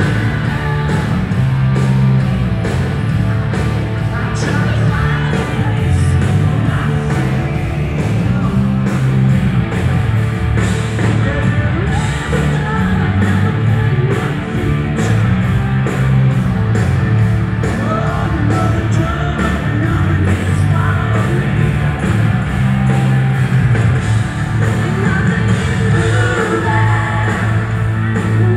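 Live hard-rock band playing: distorted electric guitars, bass, keyboards and drums at a steady beat, with a lead vocal. Loud, as heard from the audience.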